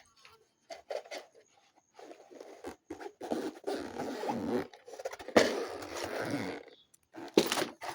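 A container being opened and handled: irregular scraping and rustling in several stretches, loudest about halfway through, the kind of noise a zipper or lid makes.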